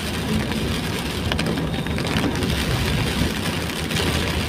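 Inside a moving car in heavy rain: a steady low rumble from the engine and tyres on the wet road, with rain hitting the roof and windscreen.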